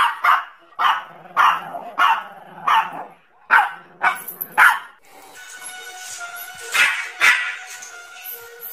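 Small dogs barking: a run of sharp barks about every half second for the first four to five seconds, then two more barks a couple of seconds later.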